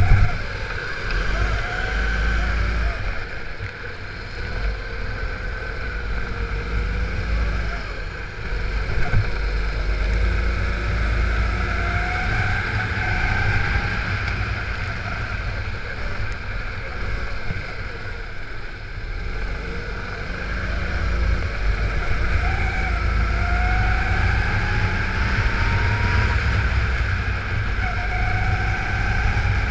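Go-kart engine heard from the kart itself, its note climbing again and again as the driver accelerates out of corners, over a steady low rumble and a hiss from the wet track.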